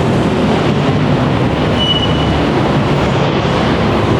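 A BTS Skytrain train running past with a steady, loud rumble, with a brief high whine about two seconds in.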